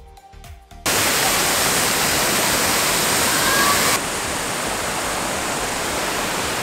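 Waterfall rushing loudly and steadily, cutting in suddenly just under a second in as soft music ends, and dropping a little in level about four seconds in.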